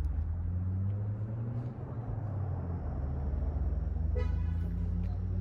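An engine running with a steady low hum. A short, high, toot-like tone sounds about four seconds in.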